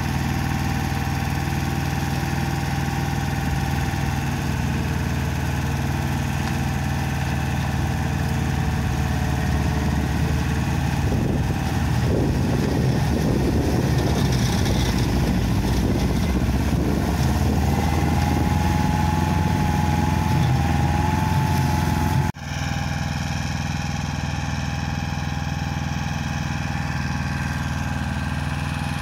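Pasquali 997 tractor's engine running steadily, driving an Agrimaster Yoyo flail mower. About halfway through, the sound grows louder and rougher as the flails chew into brambles and cover crop. Near the end it drops suddenly to a quieter, more distant engine sound.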